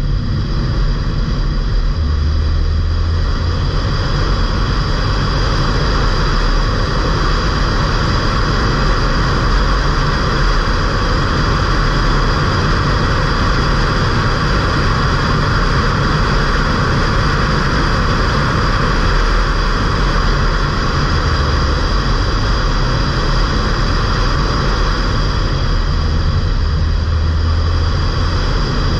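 Stage 1 remapped Ford Fiesta mk8 1.5 TDCi four-cylinder turbodiesel driving at speed: a steady low engine drone that swells slightly now and then, under a loud continuous rush of road and wind noise.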